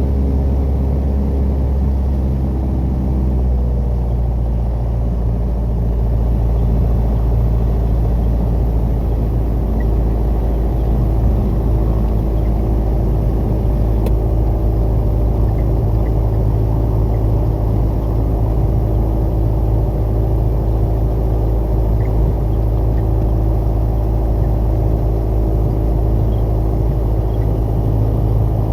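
Piper PA-28 Warrior's four-cylinder piston engine running with a steady, low drone. Its note shifts about three to five seconds in, then holds steady.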